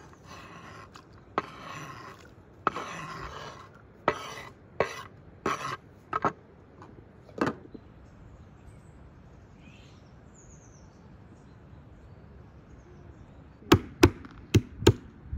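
Chopping: sharp blows on wood, a scattered run of them with some longer noisy strokes in the first half, then four quick, loud strikes near the end.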